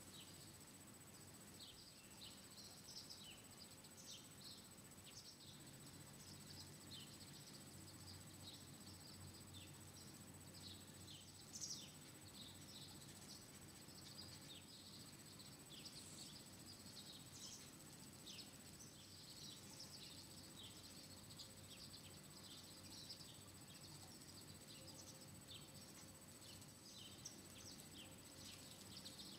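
Faint dawn chorus of small birds: many short, high chirps overlapping irregularly, over a low steady hum.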